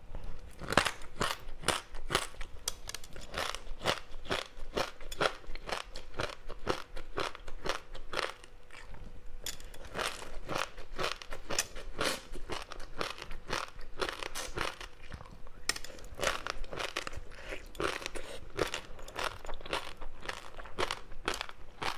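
Close-miked chewing of a crispy seaweed-wrapped rice snack: a dense, irregular run of crunches as the dry seaweed coating breaks between the teeth, easing briefly about a third of the way in.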